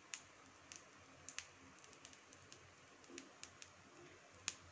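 Faint crackling of ghee frying under a pancake on a hot iron tawa: about a dozen small, scattered pops over near silence.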